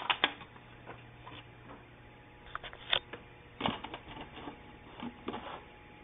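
Irregular clicks and taps of hands handling objects on a countertop: a paper card being picked up and the plastic lid of a coffee can being touched.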